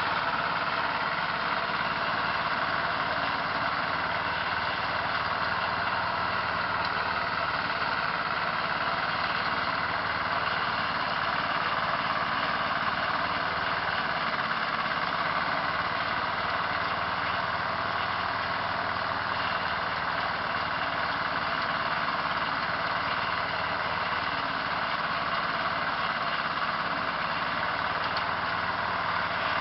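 An engine running steadily at an even speed, with no change in pace.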